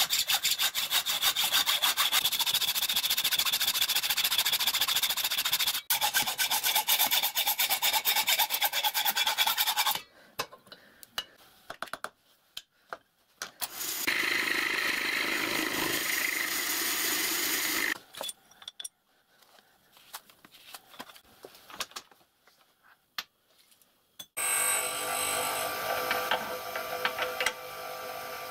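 Hand hacksaw cutting a block of bronze held in a vice, a steady rasping for about ten seconds. After a pause with a few clicks, a milling machine cutter machines the bronze for about four seconds. After more scattered clicks, a bench grinder runs with a steady hum for the last few seconds.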